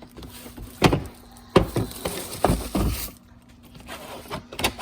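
A new plastic-cased tool kit being opened by hand: handling noise with several sharp clicks and knocks, then a quieter pause and one more click near the end.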